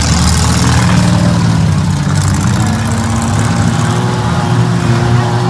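Several minivan and small-truck engines running together, idling and revving, with their pitches overlapping and shifting a little.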